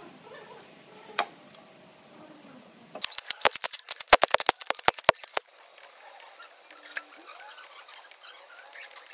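Cordless impact wrench running down the engine front-cover bolts: a rapid rattle of hammering impacts lasting about two and a half seconds, starting about three seconds in. Before and after it, light clinks of tools on the cast-iron block.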